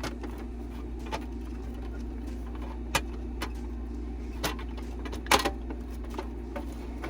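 Parts of a makeup organizer being fitted together by hand: scattered sharp clicks and taps, about eight of them, the loudest a little past five seconds in, over a steady low hum.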